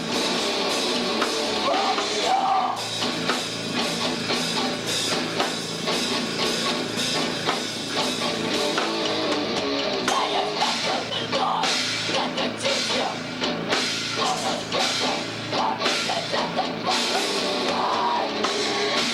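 Rock band playing in a heavy-metal style, with a busy, pounding drum kit under dense amplified instruments.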